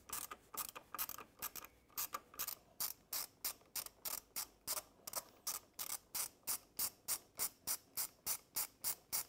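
Hand ratchet clicking in a steady rhythm, about four clicks a second, as a hex-bit socket backs out a transmission pan bolt.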